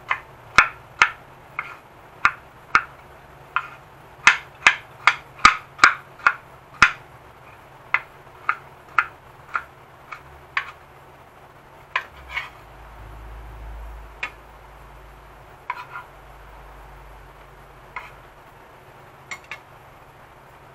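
Kitchen knife chopping tomatoes on a wooden cutting board: sharp knocks of the blade on the board, about two a second for the first several seconds, then fewer and further apart.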